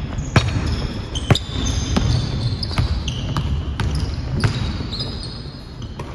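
Basketball dribbled on a hardwood gym floor: several sharp bounces, irregularly spaced, with sneakers squeaking on the court.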